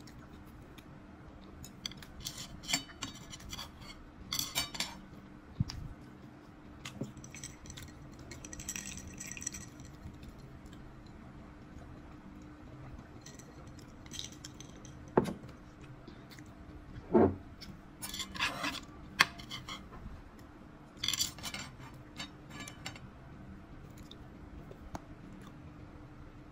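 Chopsticks clicking and scraping against a nonstick frying pan in scattered bursts, with two louder knocks about halfway through. A faint steady hum runs underneath.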